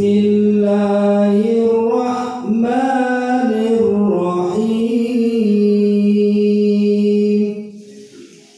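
A man reciting the Quran in murottal style into a handheld microphone: one long melodic phrase of held, gently bending notes, which ends near the end.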